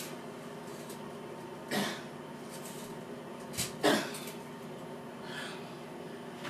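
A woman's short coughs, a few times, the loudest about four seconds in, over a steady faint hum.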